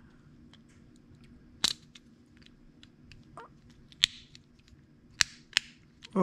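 Small plastic clicks and snaps from an HO slot car chassis being pressed and fitted into its parts by hand: a few sharp clicks, the loudest about a second and a half in and about four seconds in, with faint ticking between.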